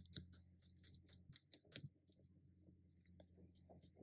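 Faint, irregular clicks and soft squishing of a metal fork breaking up chunks of wet cat food in a plastic bowl, a few taps a second.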